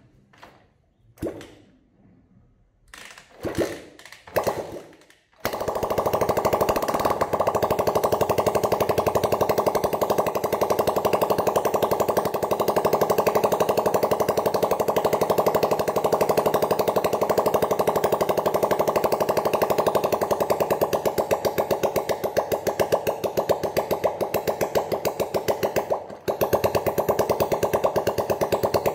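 A freshly reassembled Honda CG 125 single-cylinder four-stroke engine being test-run: after a few short bursts it catches about five seconds in and runs steadily with a fast, even pulse, dipping briefly near the end.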